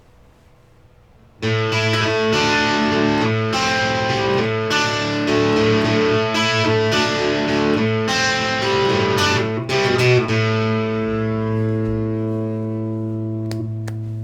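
Telecaster-style electric guitar on its Tele Hot Rails ceramic bridge pickup, played through an amp's overdriven channel: a distorted riff of picked chords starts about a second and a half in, then ends on a chord left to ring out and slowly fade.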